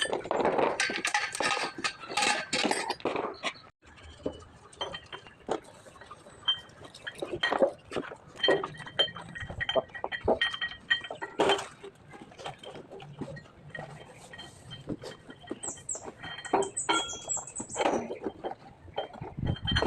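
Irregular metallic clinks and knocks of hand tools and parts being handled, busiest in the first few seconds.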